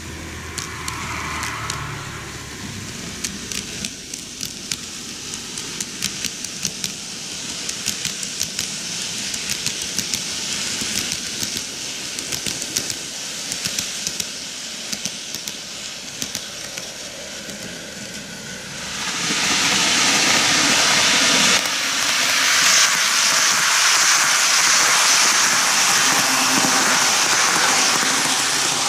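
N gauge model trains running on sectional track, wheels clicking rapidly and irregularly over the rail joints. About two-thirds of the way in this grows into a much louder steady rush as the Kintetsu 80000 Hinotori model passes close by.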